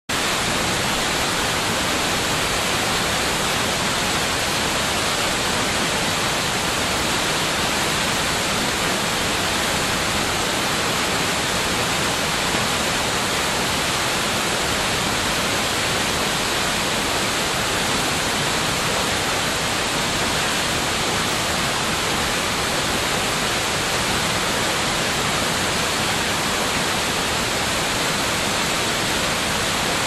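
Chōshi Ōtaki waterfall on the Oirase Stream: a steady, unbroken rush of water falling over rock and splashing into its pool.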